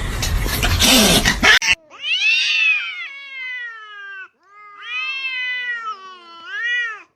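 A domestic cat giving two long, drawn-out meows, each rising then falling in pitch, the second with a quick wobble near its end. Before them, a loud rushing noise cuts off abruptly.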